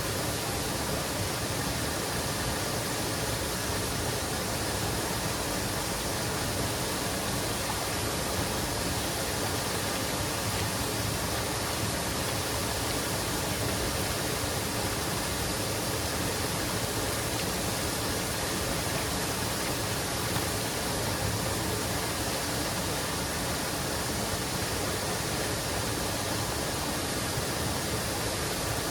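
Waterfall, a steady, even rush of falling water with no change throughout.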